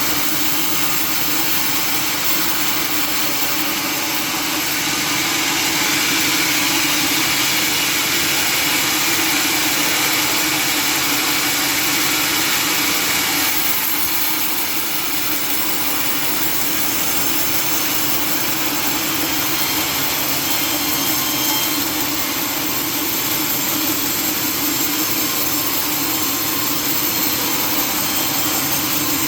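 Sawmill saw machinery running steadily with a dense, rushing mechanical noise and a steady low hum; the sound changes slightly about fourteen seconds in.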